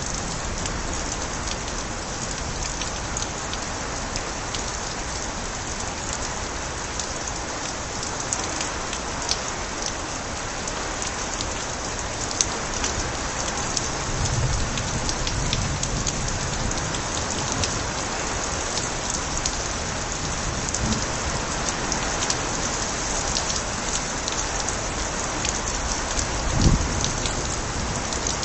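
Steady rain pouring onto a surface, with water splashing from overflowing gutters and many individual drops ticking. A brief low thump sounds near the end.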